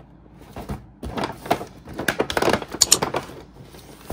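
Plastic-wrapped cardboard box being handled and turned over on a wooden shelf: irregular crinkling, scraping and small knocks, busiest from about half a second in until near the end.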